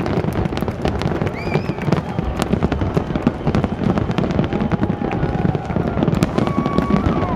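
Aerial fireworks going off in rapid, continuous succession: dense bangs, pops and crackles overlapping with no pause, with faint whistling glides among them.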